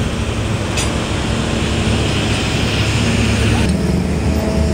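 Steady running of a nearby vehicle engine with road traffic noise, and one sharp metallic clink about a second in.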